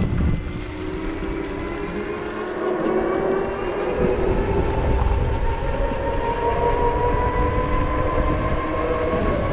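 Super73 S2 electric motorbike's rear hub motor whining under power, its pitch rising slowly as the bike gathers speed. Wind rumbles on the microphone underneath.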